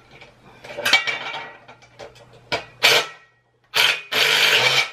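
Metal clinks and clatter of bolts and the vending machine's metal base against the stand's top plate as the two are fastened together, with two sharp hits. Near the end comes the loudest sound, a noisy burst of under a second, from a handheld driver running on the hardware.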